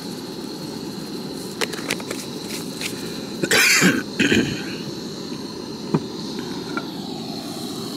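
Two short coughs about half a second apart, a little before the middle, over a steady background hiss with a few light clicks.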